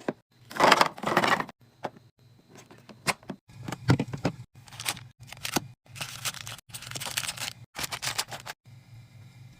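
Handling noises from restocking a fridge: a run of clicks, knocks and clatter of containers and packaging, with longer rustling stretches. Under it is a low steady hum, left alone near the end.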